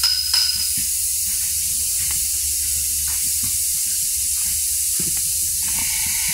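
Steady hiss with a few faint, light knocks.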